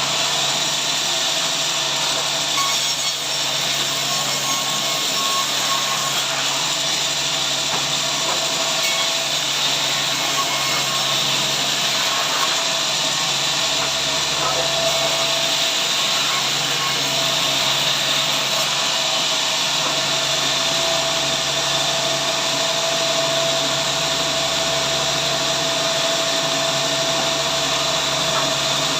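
Power saw running steadily through timber at a sawmill, a continuous even cutting noise with a faint steady whine.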